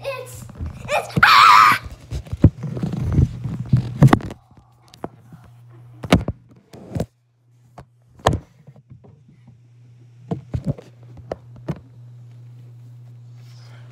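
A brief, loud, high-pitched wavering cry about a second in. Then a flurry of thumps and knocks close to the microphone, with scattered single knocks and bumps after that.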